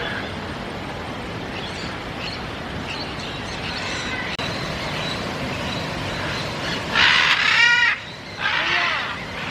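Birds calling over a steady background hum, with faint chirps and then two loud, harsh squawks near the end.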